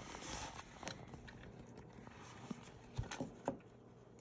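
Faint handling rustle and a few light clicks from wire connectors being fitted onto a speaker crossover's terminals.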